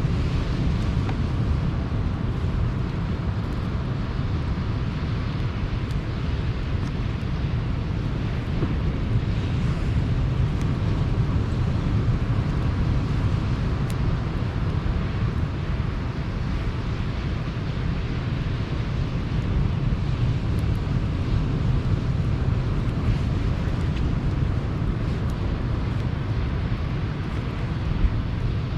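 Steady rumble of sea surf with wind on the microphone, and a few faint crackles from a wood campfire.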